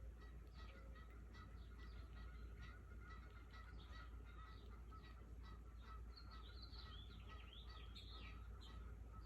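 Faint outdoor ambience of small birds chirping, with a short warbling song about six to eight seconds in, over a low steady rumble.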